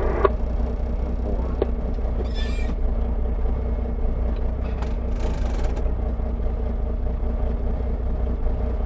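Vehicle engine idling steadily with a low rumble, with two short bursts of hiss about two and five seconds in.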